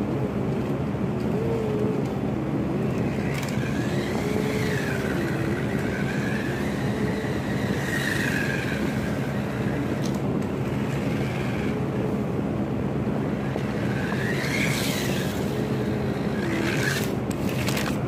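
Toy remote-control car's electric motor whining, its pitch rising and falling again and again with the throttle as the car drifts on a hard floor, over a steady low hum, with a few short clicks near the end.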